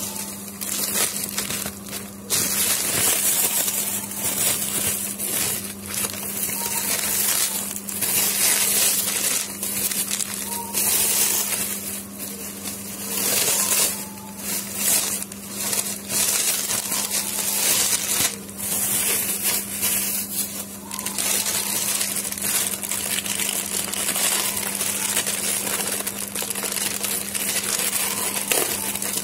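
Clear plastic packaging being handled and pulled open by hand, a continuous crinkling and rustling with irregular sharp crackles. A steady low hum runs underneath.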